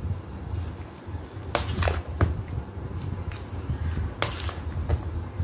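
A white plastic spatula tossing chopped fruit and beans in a plastic bowl: a few sharp clacks and knocks against the bowl in two short clusters, over a steady low hum.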